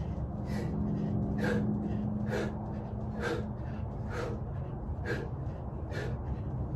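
A man breathing hard and rhythmically while exercising, with one short forceful exhale about every second, over a steady low hum.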